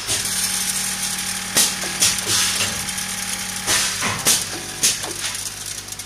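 Automatic snack weighing and packing machine running: a steady mechanical hum and rattle from the feeder carrying snack mix across its steel tray. About five sharp clacks come at irregular intervals.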